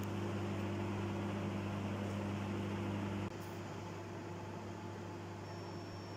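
GoldStar microwave oven running with a steady low electrical hum over the whir of its fan. A little over three seconds in, the hum drops away abruptly and the oven runs on more quietly, as when the magnetron cycles off while the lamp and fan stay on.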